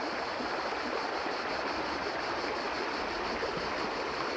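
A shallow river running over rocks, a steady rushing and babbling of water.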